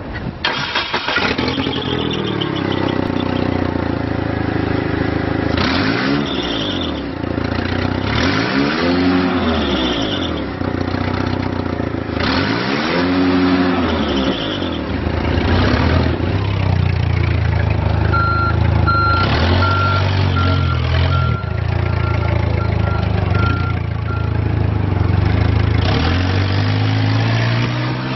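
2010 Yale GP50 forklift's 2.2-litre gas engine catching on the key, then running and being revved up and back down three times. Later the forklift drives off, with its backup beeper sounding a row of short beeps for several seconds.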